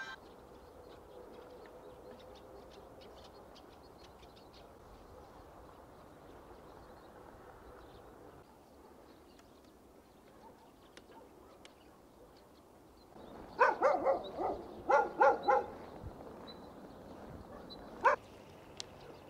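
A dog barking: a quick run of about eight loud barks a bit past halfway, and a single bark near the end, over quiet outdoor ambience with faint ticks.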